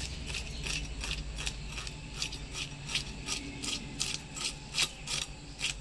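A large rohu's scales being scraped off against the edge of a boti blade: a quick run of short, sharp rasping scrapes, about three to four strokes a second.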